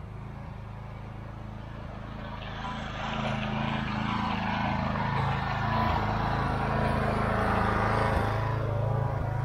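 Gasoline pressure washer's small engine running steadily, with no water spraying. The drone grows louder about three seconds in.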